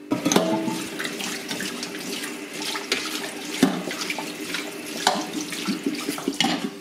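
Cold tap water running into a stainless-steel colander of freshly boiled brown shrimp in a steel kitchen sink, splashing over the shrimp and the metal as they are rinsed. A few sharp knocks sound through it.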